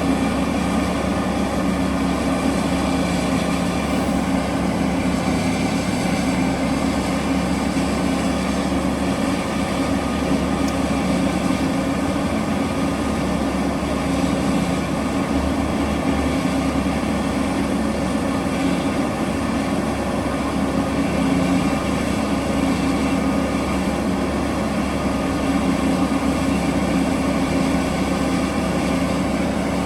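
Heavy diesel engine of large mining machinery running steadily under load, a deep even hum with no breaks.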